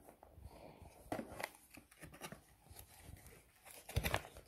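Cardboard food packaging being handled: a few short rustles and taps, the loudest about four seconds in.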